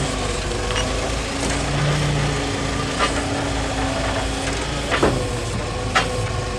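A vehicle engine running steadily, with a few sharp knocks about three, five and six seconds in.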